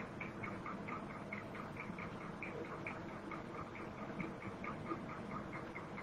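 Faint, regular ticking, about four ticks a second, over low room hiss.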